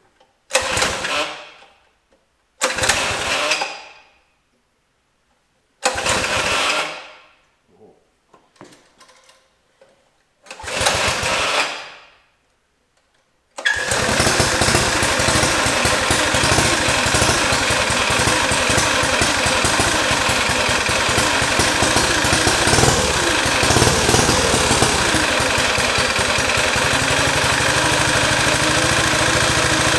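Predator 212 single-cylinder four-stroke engine being pull-started for the first time after a rebuild: four tugs on the recoil starter, each spinning it up briefly and dying away, then it catches about 14 seconds in and runs steadily.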